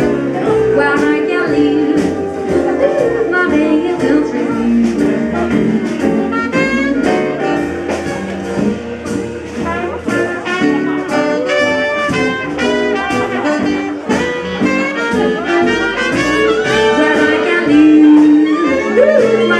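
Live swing jazz band playing at a loud, steady level, with held melody lines over a regular beat.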